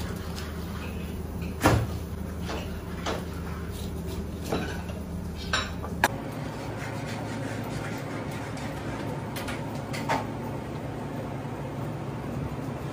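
Knife and fish pieces knocking on a plastic cutting board as a large fish is butchered: several short, sharp knocks, the loudest about two seconds in. A steady low kitchen hum runs underneath.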